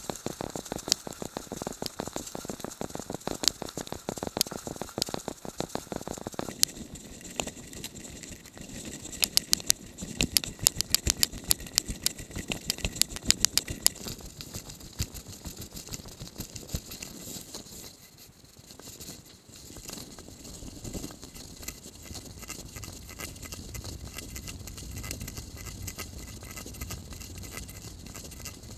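Rattling and clicking from a bicycle and its handlebar-mounted camera while riding. There are dense rapid clicks for the first several seconds, then a run of sharper, louder clicks, and after that a steadier rattle with a low rumble.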